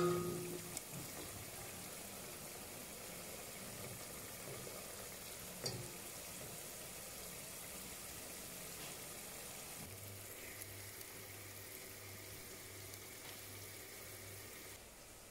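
Oily marinade simmering in a stainless steel pot, bubbling steadily, with a wire skimmer clinking against the pot at the start and a short knock about six seconds in. A faint steady whine and low hum join about ten seconds in.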